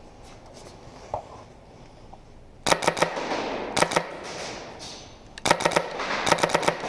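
Airsoft guns firing in rapid strings of sharp cracks: one volley a little under three seconds in, then another heavier volley near the end.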